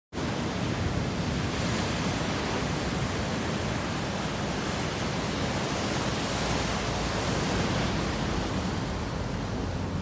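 Rough sea surf breaking and washing up a beach of rounded stones: a steady rush of waves.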